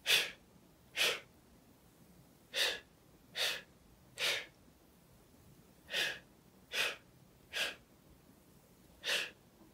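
A woman's short, sharp breaths, nine of them, mostly about a second apart with a couple of longer gaps, taken in rhythm with a facial exercise as she lifts one corner of her mouth at a time.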